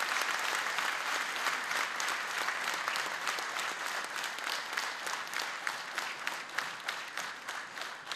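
A large audience applauding: many hands clapping together, dense and steady at first, then slowly dying away toward the end.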